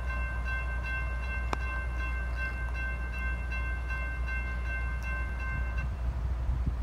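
A railroad grade crossing bell ringing in steady, even strokes, then stopping about six seconds in, over a low rumble.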